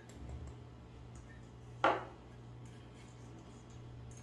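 A single sharp clink of kitchenware about two seconds in, over a steady low hum.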